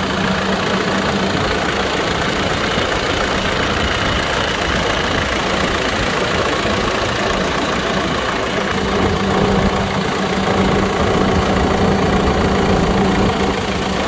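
The JCB 3CX Stage V backhoe loader's 4.8-litre turbocharged diesel engine idling steadily, heard close up at the open engine bay.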